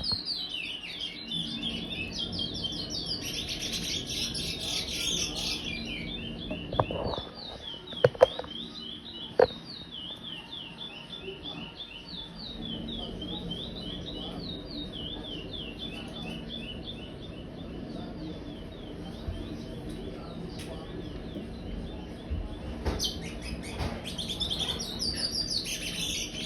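Five-month-old curió (chestnut-bellied seed finch) singing the "praia" song. Dense, rapid high phrases at the start and again near the end, with a long run of short repeated high notes between them. A few sharp clicks come about seven to nine seconds in.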